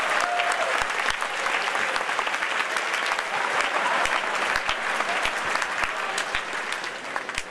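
A large audience applauding with many overlapping claps, tapering off near the end.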